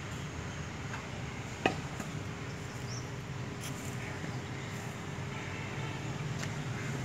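Outdoor background ambience: a steady low hum with one sharp click about a second and a half in, and a faint short high chirp around three seconds in.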